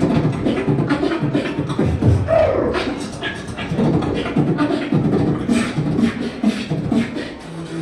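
Beatboxing: rapid mouth-made kick, snare and hi-hat sounds woven with hummed bass tones, with a short rising vocal glide a little over two seconds in.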